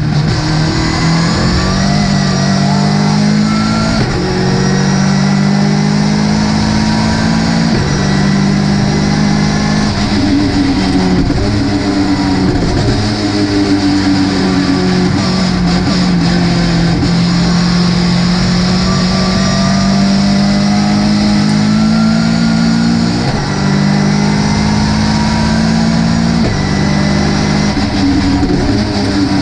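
Ginetta GT5 race car's four-cylinder engine running hard under racing load, its pitch climbing and dropping again and again through gear changes and lifts for corners.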